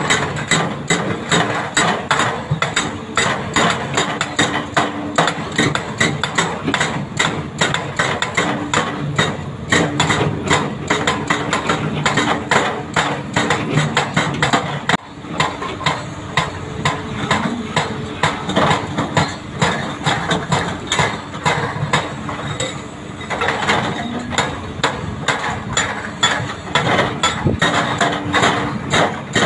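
Hydraulic rock breakers on a Doosan DX300LCA and a Hyundai HX340SL excavator hammering hard rock: rapid impacts, several a second and overlapping, over the steady running of the excavators' diesel engines. The hammering breaks off briefly about halfway through.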